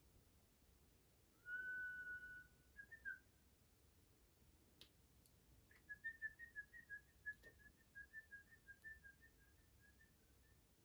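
A songbird whistling faintly: one long steady note ending in a quick flourish, then a fast run of short whistled notes lasting about four seconds.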